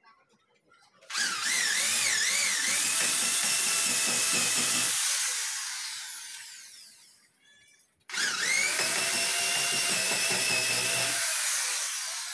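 Corded electric drill run twice in wood. Each time it spins up with a rising whine and runs for a few seconds, its pitch wavering under load, then winds down after the trigger is released.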